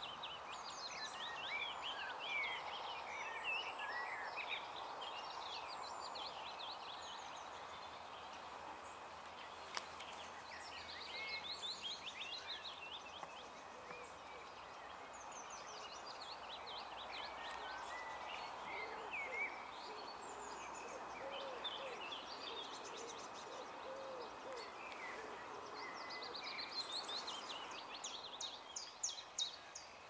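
Wild birds singing and chirping throughout, a chorus of several birds, over a steady background hiss. A run of lower, deeper notes comes in partway through.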